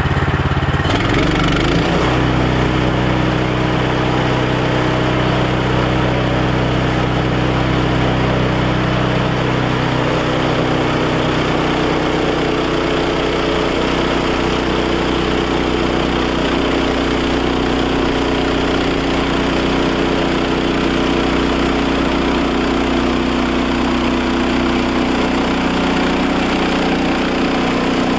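Woodland Mills HM130 Max sawmill's gas engine running steadily. Its note shifts about ten seconds in.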